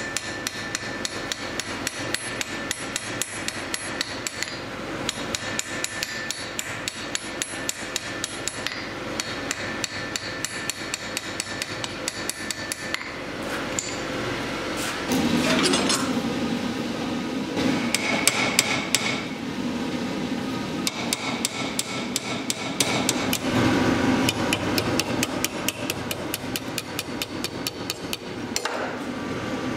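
Hand hammer striking hot steel on an anvil in rapid, even blows, several a second without a break. From about halfway, a louder rushing noise comes and goes under the blows.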